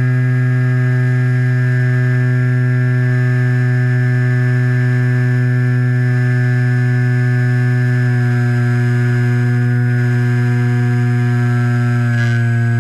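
Electric motor and propeller of a HobbyZone Super Cub RC plane running at steady cruise throttle, heard close up from a camera on the airframe: a loud, even whine that eases slightly lower in pitch near the end as the throttle comes back a little.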